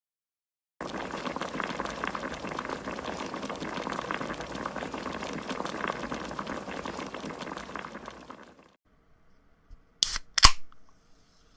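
Water boiling in a pot, a dense bubbling that starts suddenly about a second in and fades out after several seconds. Near the end come two sharp clicks in quick succession.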